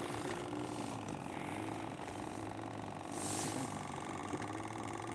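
Small boat's engine running steadily, a low drone with an even pulse, with a brief hiss about three seconds in.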